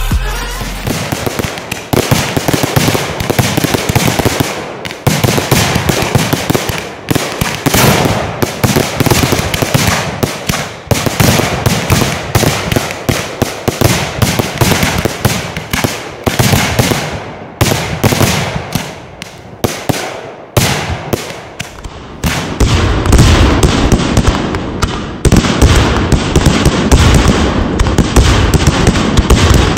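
Fireworks going off in a rapid, continuous barrage of bangs and crackles, with a short lull about twenty seconds in and heavier, deeper bangs after it.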